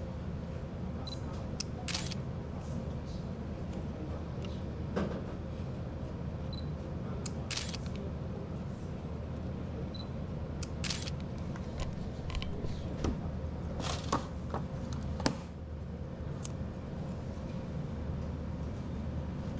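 Fujifilm X100V camera clicking as photos are taken: a series of short, sharp clicks a few seconds apart, ending about three quarters of the way in, over a steady low hum of room noise.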